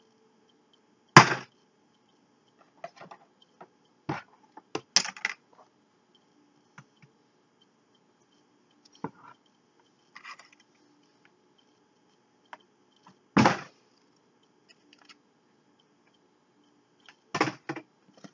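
Small objects, a battery among them, dropped one at a time into an empty hollow plastic bin, each landing with a sharp knock or clatter. The loudest lands about a second in and another about thirteen seconds in; a few lighter taps come around four to five seconds, and a quick double knock near the end.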